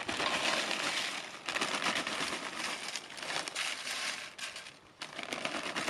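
Plastic corn chip bag crinkling while crisp corn chips are taken out and rustle as they are laid into a frying pan, with a short lull about five seconds in.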